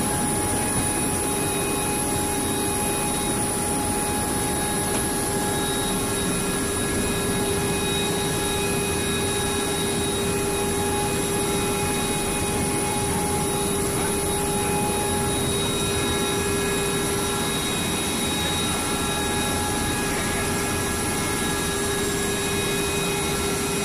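Military helicopter heard from inside its cabin, engines running: a steady dense noise with several unchanging tones and a high steady whine on top.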